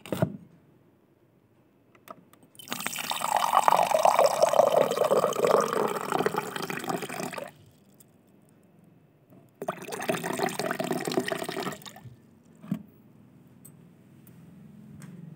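Water running, in two spells: about five seconds, then after a short pause about two seconds more.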